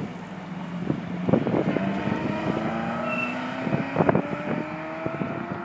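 A car engine accelerating away, its note rising steadily for several seconds. Wind buffets the microphone in loud gusts, about a second in and again near four seconds.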